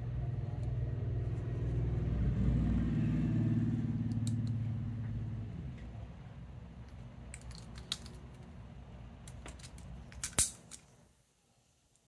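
Carbon-fiber-handled balisong being handled, its metal-capped handles and latch clicking a few times in the second half, the loudest a sharp clack near the end. Under the first half, a low rumbling hum swells and fades.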